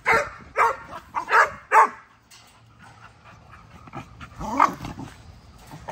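American bully dogs barking: four barks in quick succession over the first two seconds, then one more bark about four and a half seconds in.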